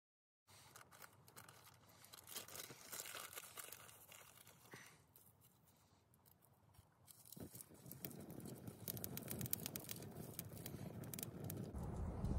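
Wood campfire crackling, with scattered small pops and snaps. About two-thirds of the way through, a low rushing noise swells in and grows steadily louder.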